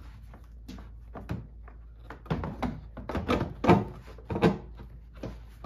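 Plastic tail light housing knocking and scraping against the car body as it is pushed and wiggled into its opening. After about two seconds there is a flurry of knocks and clunks, the loudest near the end.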